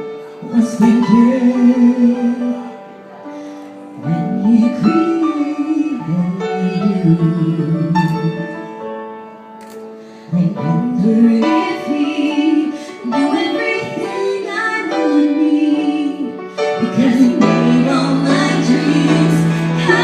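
Live song with a singer over instrumental accompaniment: sung phrases with long held, wavering notes, separated by short breaths.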